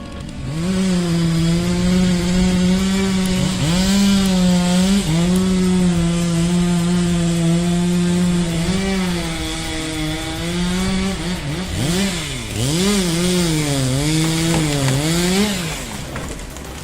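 Two-stroke chainsaw running at high revs while cutting wood, its pitch holding steady, sagging briefly in the cut and picking up again. Near the end the engine revs up and down several times in quick swings before dropping away.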